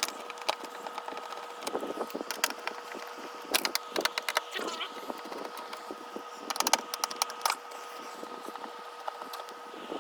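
Clusters of sharp clicks and cracks from the plastic casing of a flat-screen LCD TV being worked at by hand and with tools as it is taken apart, coming in short bunches a few seconds apart.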